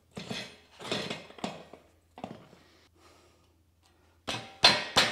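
Metal clanks and knocks as a wheel axle is worked and tilted through the bearings of a cement mixer's tubular steel frame. There are a few knocks in the first two seconds and the loudest pair near the end. The axle binds because it is undercut and won't slide all the way through the bearings.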